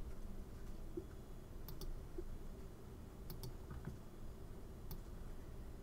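Faint computer mouse clicks: two quick pairs of clicks, then a single click near the end.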